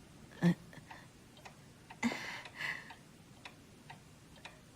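A clock ticking steadily, about two ticks a second, in a quiet room. A short louder sound comes about half a second in, and a brief noisy sound around two seconds in.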